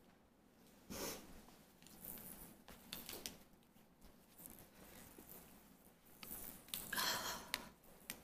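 Faint rustling and soft knocks from a fabric baby play mat and toys being handled and carried, with a short knock about a second in and the loudest rustling around seven seconds in.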